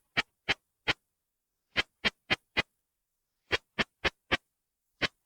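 Song of an Unzen sasakirimodoki katydid (Tettigoniopsis ikezakii), pitched in ultrasound at 30–70 kHz and made audible by a bat detector. It comes out as sharp clicks in groups of four, with a new group about every second and a half.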